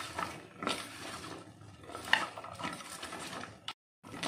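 Raw, rinsed potato strips tossed by hand with salt in a stainless steel bowl: the wet strips rub and knock against each other and the bowl in irregular handfuls. A brief cut to dead silence comes near the end.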